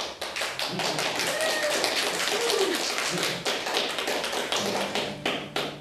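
A roomful of guests applauding, the clapping breaking out all at once and going on densely. Music fades in under it near the end.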